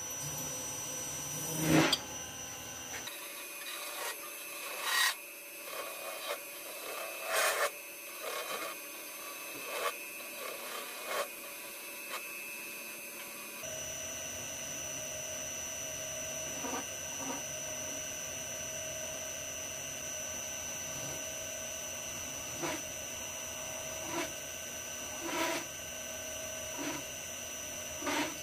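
Lathe running with a steady whine while a hand-held turning tool scrapes a small spinning brass workpiece in short, irregular strokes, each a brief harsh scrape.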